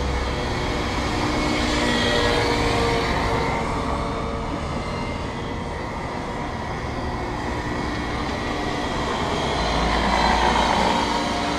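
Helicopter flying, its engine and rotor sound steady, swelling louder twice, about two seconds in and again near the end.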